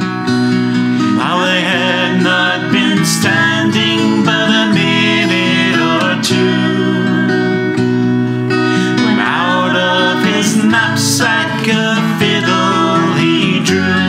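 Acoustic guitar accompanying a man singing a traditional folk ballad, in several sung phrases over continuous guitar.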